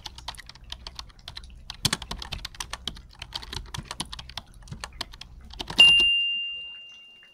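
Typing sound effect: a quick, irregular run of key clicks. It ends about six seconds in with one loud bell ding that fades away over a second or so.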